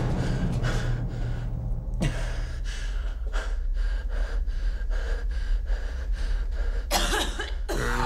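A person coughing repeatedly, harsh and rasping, with ragged breaths between coughs, over a low steady drone.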